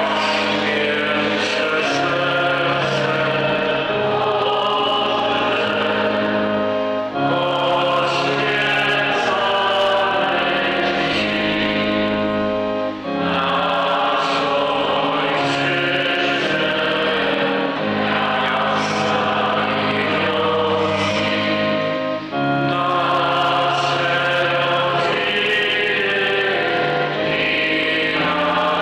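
A hymn sung by many voices over held low notes, in long phrases with short breaths between them.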